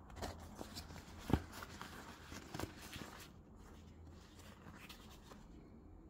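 A leather gear-shift gaiter and its plastic frame being handled: rustling and scratching with a run of sharp clicks and knocks, the loudest just over a second in. It goes quieter after about three seconds.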